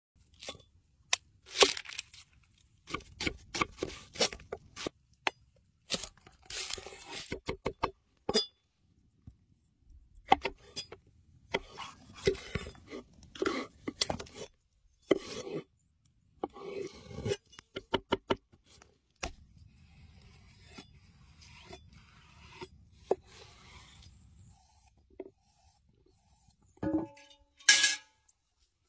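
Large cleaver-style knife cutting onion and red bell pepper on a wooden cutting board: repeated crunching cuts and knocks of the blade on the board, some in quick runs of strokes.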